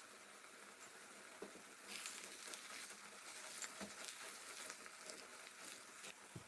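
Faint sizzling and crackling of food cooking in a pan, which gets busier about two seconds in. A few soft knocks are heard, likely a utensil against the pan.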